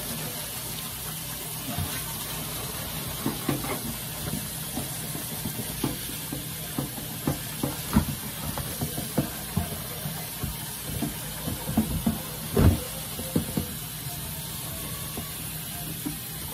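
Tap water running steadily into a sink while a pot lid is washed, with scattered clinks and knocks of the lid against the sink; the loudest knocks come about eight and twelve and a half seconds in.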